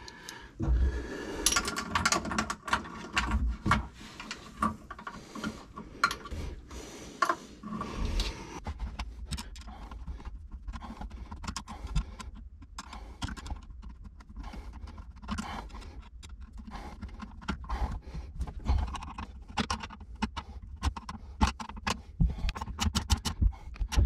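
Hands and a hand tool working a drain hose onto a bilge pump in a jet ski's engine bay: irregular clicks, knocks and scrapes of plastic hose and tool against fittings, with a quick run of even clicks near the end.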